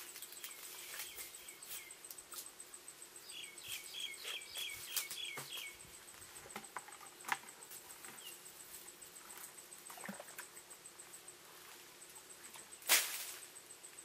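Water splashes and small knocks as a plastic bucket is worked in a shallow ditch, with one loud splash near the end as the bucket is tipped out. A bird gives a quick run of about eight chirps a few seconds in, over a steady high insect whine that stops about three-quarters of the way through.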